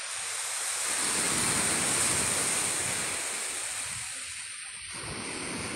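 Ocean surf washing onto a sandy beach: a steady rush of breaking-wave noise that swells for about two seconds and then eases.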